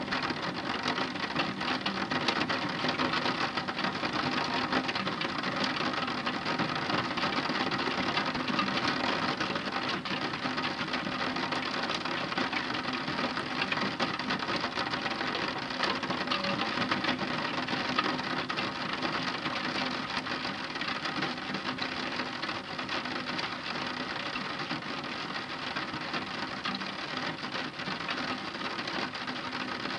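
Heavy rain falling steadily: a dense, even patter of many drops.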